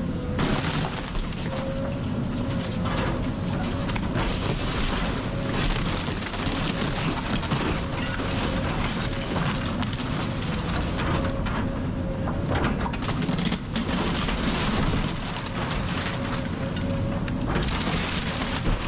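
House being torn down by heavy machinery: a machine engine runs steadily under repeated crashing, cracking and crunching of breaking wood and debris.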